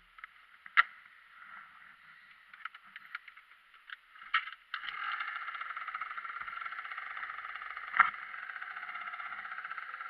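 Scattered clicks and knocks, then about halfway in the small engine of a Yamaha Jog scooter starts abruptly and runs steadily with a fast, even pulse. A single sharp knock comes near the end.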